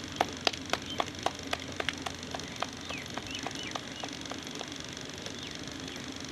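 Roti dough being patted and flattened between the palms by hand, a quick run of sharp slaps about four a second that grows softer and stops about four and a half seconds in.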